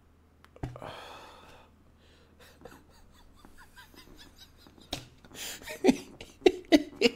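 A person's voice without words: a sharp breath out about half a second in, faint clicks, then short breathy bursts of laughter near the end.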